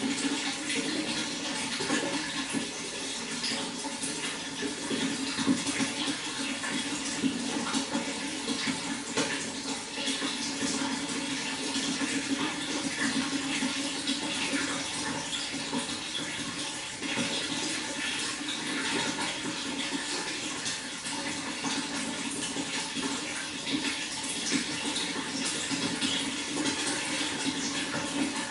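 Water flowing and splashing in a steady, unbroken rush.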